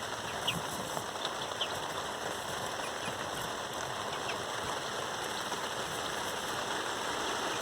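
Steady rain falling, an even hiss of drops. A couple of faint, short, high cheeps from young chickens come in the first two seconds.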